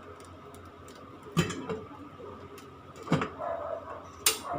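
Popcorn kernels popping in a covered pot on the stove, three sharp pops spaced a second or more apart as the popping thins out.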